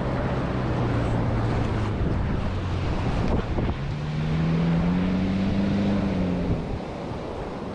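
Strong wind buffeting the microphone over the rush of surf. A low hum runs for the first two seconds, and another starts about four seconds in, rises slightly in pitch and cuts off near the end.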